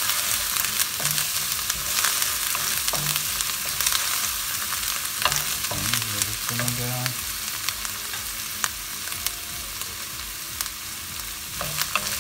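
Chopped ginger, garlic, green pepper and curry leaves sizzling in hot oil in a nonstick pan, stirred steadily with a wooden spatula that scrapes and taps against the pan.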